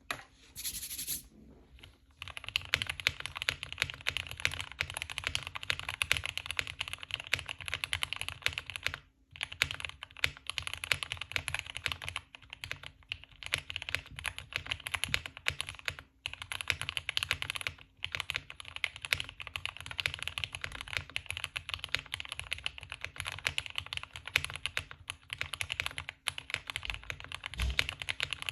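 Fast, continuous typing on a computer keyboard: dense rapid key clicks with a few brief pauses.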